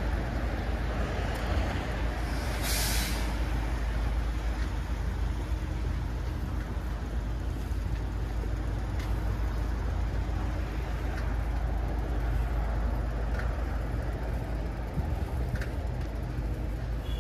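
Road traffic running steadily, with a short hiss of a heavy vehicle's air brakes releasing about three seconds in.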